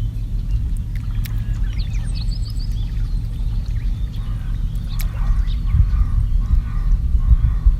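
Birds calling: a quick run of high chirps about two seconds in, then a lower call repeated about twice a second through the second half, over a steady low rumble.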